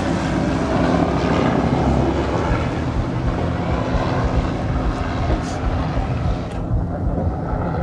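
Light helicopter flying past, its rotor and engine making a steady drone. The higher hiss drops away about six and a half seconds in as it moves off.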